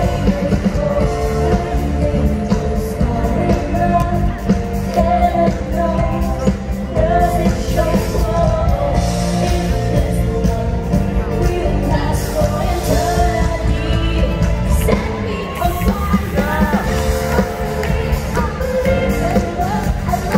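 Pop-rock song with a singer over a steady heavy beat, played loud through a large hall's sound system. The bass drops out briefly about fifteen seconds in, then comes back.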